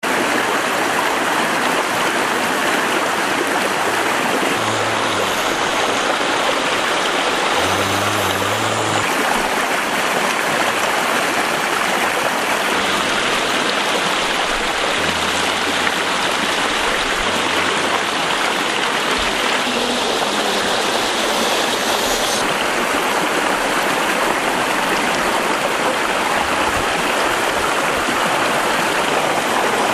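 Steady rushing of a forest stream, water running over stones.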